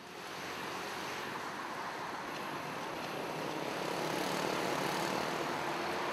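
Steady rushing outdoor noise that fades in from silence at the start and slowly grows louder.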